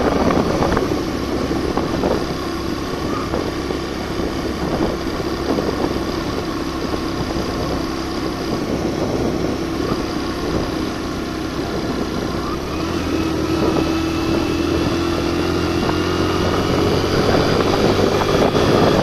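Suzuki GN125 motorcycle's single-cylinder four-stroke engine running steadily while ridden with a passenger, its pitch rising gradually over the last several seconds as it revs up.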